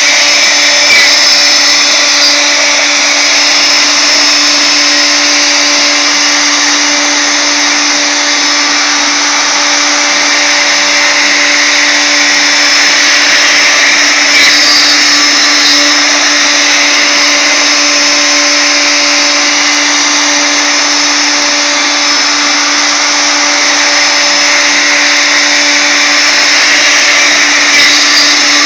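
Wood router mounted as a CNC router spindle, running at high speed with a steady whine while a ball-nose bit cuts a finishing pass across carved wood.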